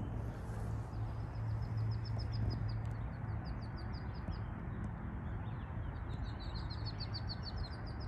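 A bird's song of quick repeated high chirps, one run near the start and another near the end, over a steady low hum.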